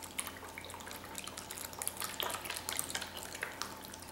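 Chicken stock pouring from a carton into a foil pan of cut vegetables: a continuous trickle of liquid with many small irregular splashes.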